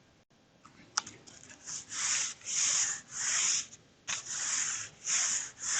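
Rhythmic hand rubbing on paper, about two strokes a second starting about two seconds in, as siding paper is glued onto a papercraft house wall.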